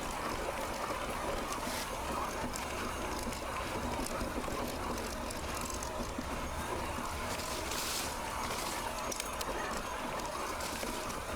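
Mountain bike on the move: steady rush of wind and tyre noise, with scattered clicks and rattles from the bike.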